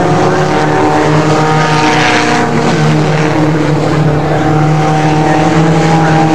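Several racing car engines running hard around the circuit, a steady multi-toned engine drone with pitches that shift slightly as the cars change speed, and a rougher surge about two seconds in.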